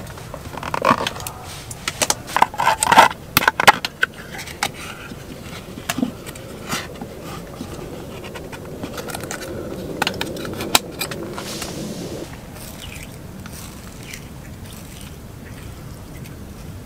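Clicking and crackling as the plastic cap comes off a can of soy-marinated crab meat, then a longer scraping sound as its peel-off foil lid is pulled back from the rim. The loudest clicks come in the first few seconds.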